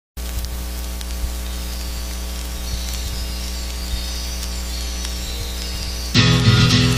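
Steady low electrical hum with a few faint clicks. About six seconds in, loud guitar music starts abruptly.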